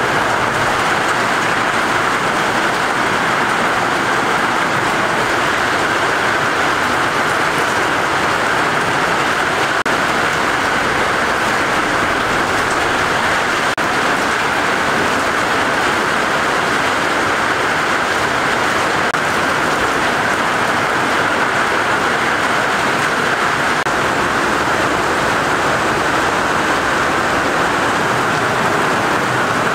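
Steady heavy rain falling, an even hiss that holds at the same level throughout.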